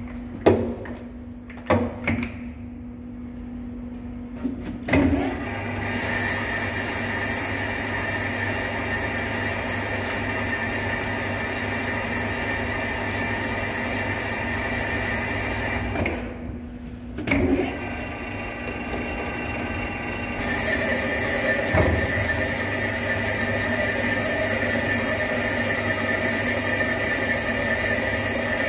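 Centre lathe: a few clunks as the spindle speed is changed to 70 rpm, then the spindle running steadily while a boring bar single-point cuts a 12 TPI internal thread in a steel hydraulic cylinder barrel. It stops briefly with a clunk about 16 seconds in, then runs again, louder with more cutting hiss from about 20 seconds in.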